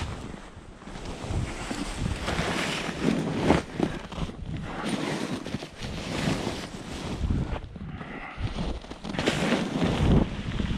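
Wind buffeting the microphone in uneven gusts, a rough rumbling rush that swells and drops every second or so.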